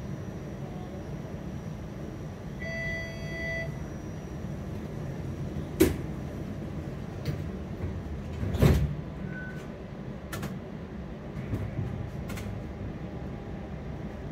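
A TTC streetcar in motion, heard from on board: a steady low rumble, with a single pitched beep of about a second a few seconds in and several sharp knocks, the loudest about two-thirds of the way through.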